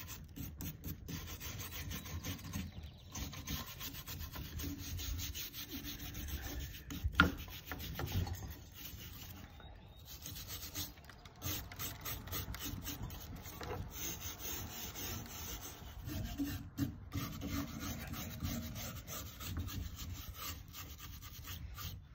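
A hand brush scrubbing weathered elk antler, a continuous scratchy rasping of bristles on dry antler as flaking old surface is cleaned off before staining. There is one sharp knock about seven seconds in.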